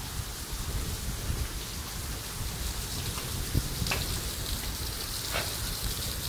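Heavy rain pouring onto wet cobblestones and pavement, a steady hiss. Two sharper ticks stand out, about a second and a half apart past the middle.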